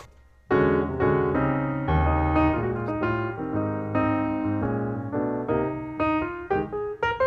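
Background piano music: a steady run of notes that starts about half a second in after a brief hush.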